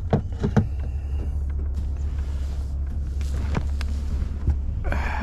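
Wind buffeting the microphone in a steady low rumble, with a few sharp knocks and clicks, mostly in the first second.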